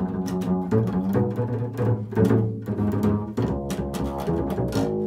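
Double bass played pizzicato: a run of plucked notes, several a second, in an improvised line.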